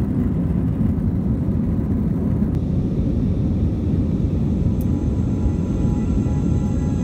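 Jet airliner cabin noise heard from a window seat: a steady, loud low rumble of engines and airflow. The fainter hiss above it drops away about two and a half seconds in, where the shot changes from the runway to the plane flying above the clouds.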